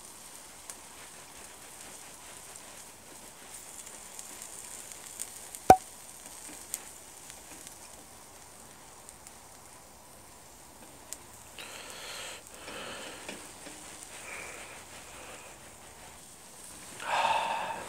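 Beef steak sizzling on a stone slab heated over a portable gas burner as it is sliced with a knife. There is one sharp click about six seconds in as the knife meets the stone, and a brief louder sound near the end.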